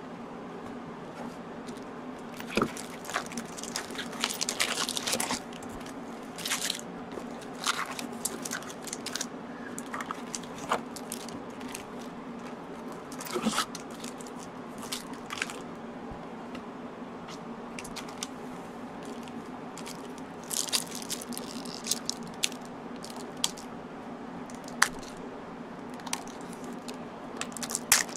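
Foil booster-pack wrappers of 1996 Magic: The Gathering Alliances packs crinkling and crackling in irregular bursts as the packs are lifted out of the box and handled, over a steady low hum.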